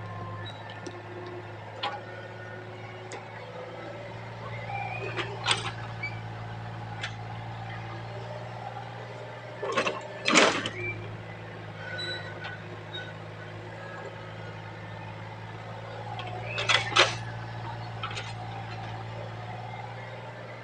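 Excavator diesel engine running steadily, with a few sharp clanks and knocks, the loudest about ten seconds in and again near the end.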